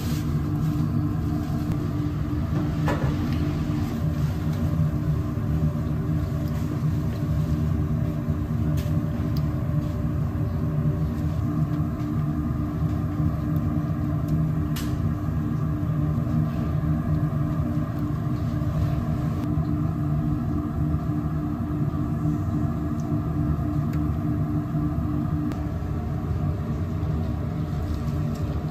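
Steady low machine hum and rumble with a few held tones, from kitchen equipment running, with a couple of faint clicks.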